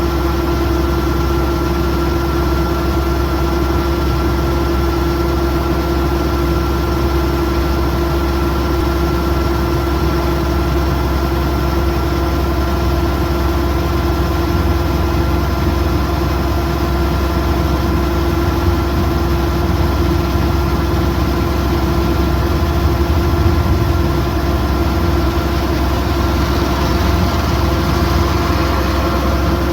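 Kubota DC108X rice combine harvester running steadily at an even engine speed: a low diesel rumble with a constant whine on top.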